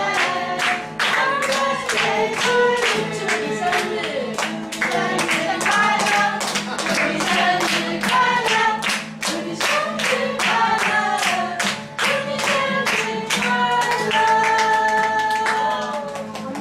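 A group of people singing a birthday song together and clapping along in a steady beat, ending on a long held note near the end.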